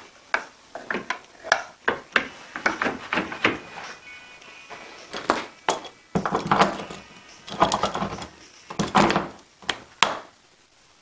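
Knocks and clatter of bench dogs and a metal hold-down clamp being handled and set into the holes of a wooden workbench top, in a quick irregular series with denser scraping clatter twice in the second half.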